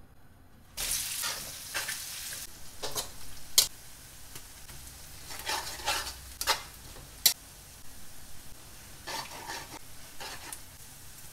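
Sliced shallots and garlic sizzling in hot oil in a hammered metal wok, a metal spatula stirring them and clinking and scraping against the wok. The sizzle starts suddenly about a second in and carries on steadily under the sharp clinks of the spatula.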